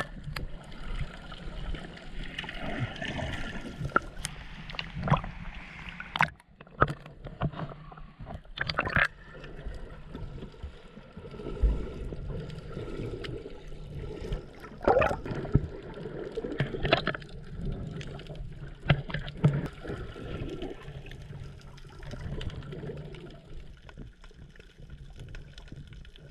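Muffled water sound picked up by a camera held underwater while snorkelling: a steady gurgling wash with bubbles, broken by scattered clicks and knocks.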